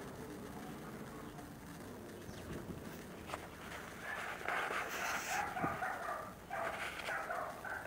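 A low hum fades away over the first few seconds, then from about four seconds in an animal calls repeatedly in the background.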